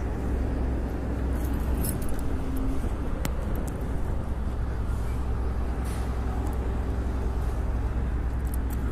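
Steady low rumble of road traffic and engines at the kerbside, with a few light clicks and rattles.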